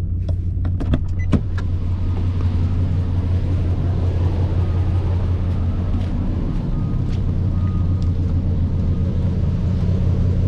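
Nissan Titan's V8 engine idling roughly, misfiring, with an uneven, stumbling beat. A few sharp clicks in the first second and a half.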